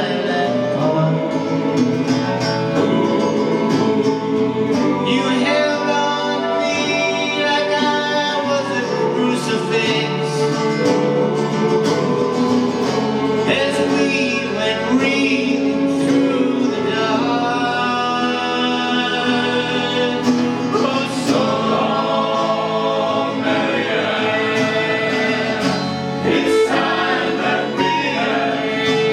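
Music with voices singing over instrumental accompaniment, running steadily with held notes.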